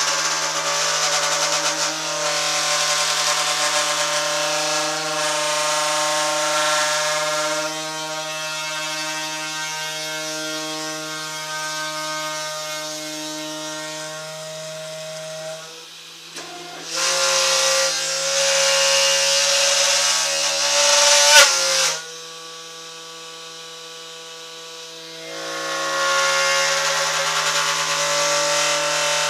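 Machine tool drilling fastener holes into a tabletop: a steady motor whine runs throughout. Louder spells of drilling hiss come in the first several seconds, again for about five seconds past the middle ending in a sharp click and a sudden drop, and again near the end.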